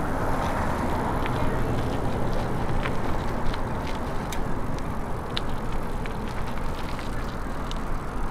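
Loaded touring bicycle rolling slowly across an asphalt parking lot: a steady low rumble of tyre and wind noise, with scattered light clicks.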